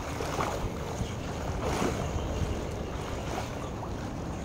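Pool water splashing and lapping as a person swims, with a few soft swishes from the strokes and wind rumbling on the microphone.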